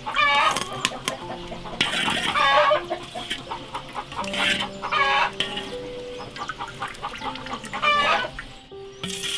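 Chickens clucking: a series of loud calls every couple of seconds, over faint background music with held notes.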